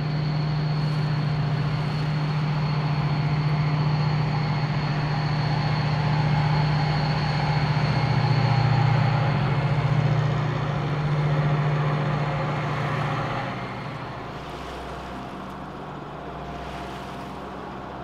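Steady low diesel drone of a river towboat pushing a tow of barges, heard close alongside together with the boat's own engine and water noise. The drone fades about fourteen seconds in, leaving a quieter engine hum.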